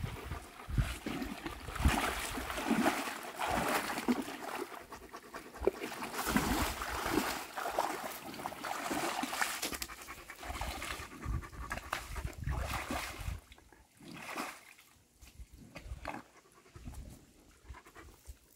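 An animal panting close by, with water splashing and trickling from the hose. It grows thinner and quieter about two-thirds of the way through.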